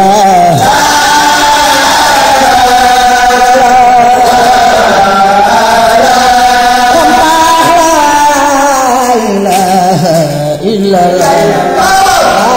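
Baye Fall zikr chant, a voice singing long, slowly wavering melodic lines with a brief dip about ten and a half seconds in.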